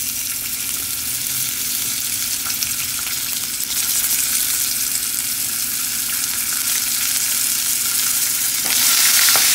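Ginger pieces frying and sizzling in hot oil with nuts, chana dal and spices in a nonstick frying pan, stirred with a wooden spatula. This is the tempering for semolina upma. The sizzle grows louder about four seconds in and again near the end.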